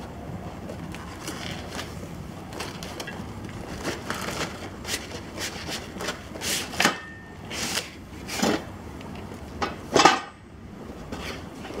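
A cardboard shipping box and its styrofoam packing being handled as a trimmer rack is pulled out: a run of short scrapes, rustles and knocks that grows busier from about four seconds in, the loudest a knock about ten seconds in.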